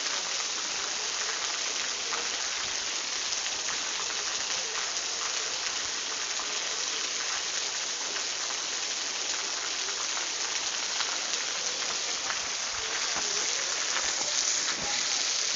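Steady rain falling: a dense, even hiss with many small drop taps on a surface, growing slightly louder in the last couple of seconds.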